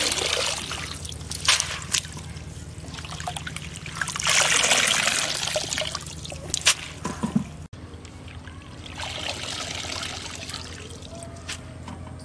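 Water trickling and splashing back into a metal pot as handfuls of chopped radish leaves are lifted out of their washing water, in three spells, with a few light knocks between them.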